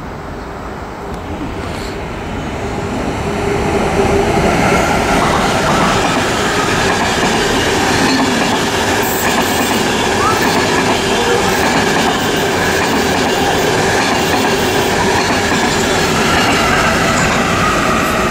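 Passenger train of ICR coaches with an NS class E186 electric locomotive running past at speed. The rumble and rattle of wheels on rail grows louder over the first few seconds as the train approaches, then holds steady as the coaches pass, with the locomotive going by near the end.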